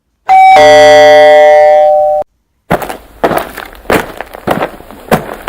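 Sound effects. First a loud ringing tone with many overtones, held for about two seconds and then cut off abruptly. After a short silence comes a run of sharp knocks, a couple a second.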